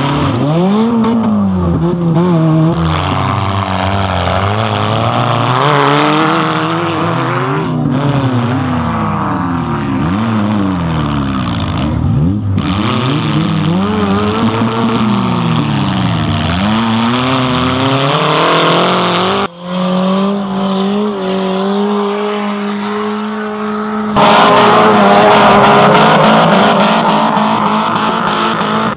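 Engines of wrecked race cars revving hard on a dirt track, their pitch rising and falling over and over as they are driven through a bend. About two-thirds of the way in the sound cuts to engines held at steady high revs, louder near the end.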